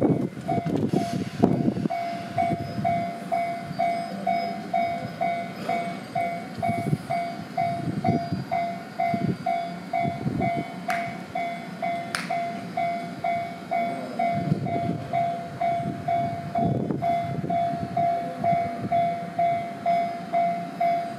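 Japanese level-crossing warning bell ringing steadily, a repeating two-tone clang about one and a half times a second, while a Chichibu Railway electric local train passes over the crossing with a low rumble of wheels. Two sharp clicks come about halfway through.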